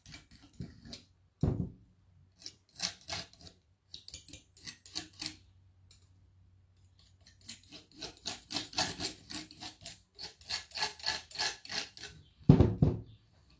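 Spatula scraping gold paint onto the edge of an MDF vase in runs of short, rapid strokes. There is a knock about a second and a half in and a louder thump near the end.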